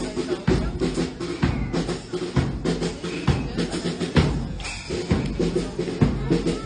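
Music with a drum kit: bass and snare drum hits over steady low pitched notes.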